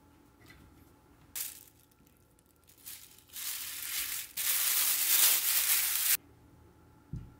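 Thin plastic bag crinkling and rustling as a ball of tart dough is wrapped in it, in several bursts that grow louder and cut off abruptly about six seconds in. A short low thump near the end.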